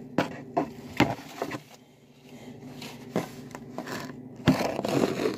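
Handling noise close to the microphone: a run of sharp knocks and taps, then a short burst of scuffing and rustling near the end, over a faint steady hum.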